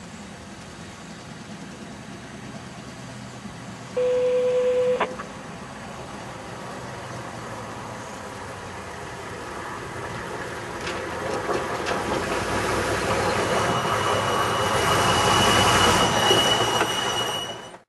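CN hi-rail truck approaching and passing on the track. About four seconds in its horn gives one steady blast of about a second. Then the rumble of its rail wheels and engine grows steadily louder as it passes close by, with a thin steady high squeal from the rail wheels for the last few seconds.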